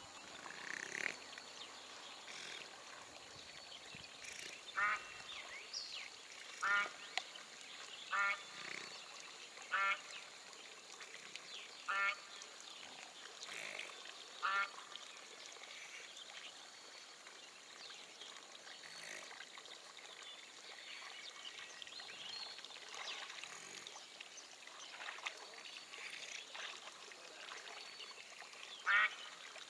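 A bird giving short, single calls, each under half a second long. Six come at intervals of one to two seconds between about 5 and 15 seconds in, and one more comes near the end, over a faint steady outdoor background.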